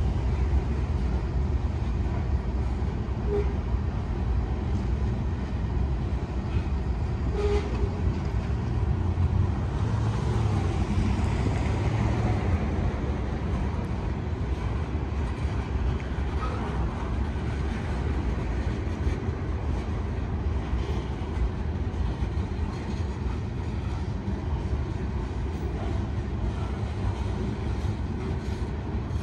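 Freight train rolling past: a steady rumble of wheels on the rails that holds at an even level throughout.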